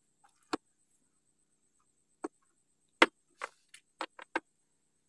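Sharp clicks and taps of a freshly caught small fish being handled and unhooked by hand, with fingers working the hook and line. They are scattered at first, then come in a quick run of about six from three to four and a half seconds in, the loudest near three seconds.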